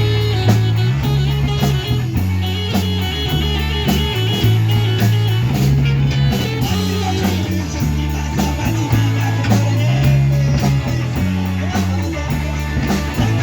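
Rock band playing: electric guitar over a low moving bass line and a steady drum beat.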